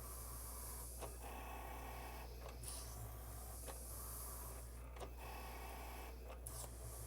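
Cricut cutting machine cutting a sheet of paper: its motors whir in stretches of a second or so as the blade carriage moves, with small clicks between moves.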